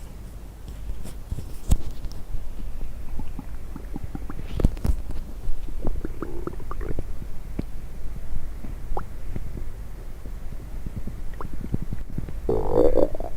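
Human stomach gurgling as it digests coffee and Diet Coke: many small pops and clicks mixed with short gurgles, then a louder, bubbling gurgle near the end.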